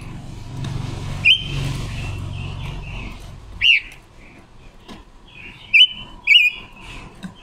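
Caged silver-eared mesia giving short, sharp calls: four loud ones, one of them a quick falling note, with softer chirps between. A low rumble runs under the first half and fades out about halfway through.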